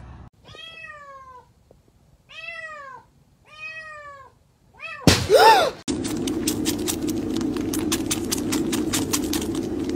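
A cat meowing four times, each meow falling in pitch. About five seconds in there is a short loud cry, then a steady buzzing sound with rapid rattly clicks.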